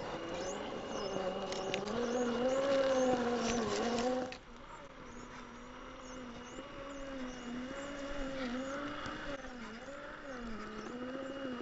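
Electric motor and geartrain whine of a 1/10-scale RC rock crawler, its pitch rising and dipping with the throttle as it crawls, with clicks of tyres and chassis on rock in the first few seconds. The sound drops quieter at a cut about four seconds in, then carries on wavering.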